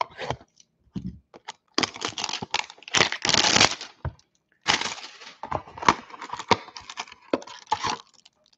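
Cardboard 2020 Panini Prizm hanger box being torn open by hand: crackling, tearing and crinkling in irregular bursts with sharp clicks, the longest about two and three seconds in.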